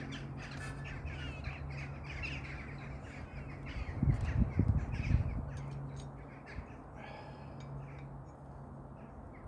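Crows cawing, with a steady low hum underneath and a cluster of heavy low thumps about four to five seconds in.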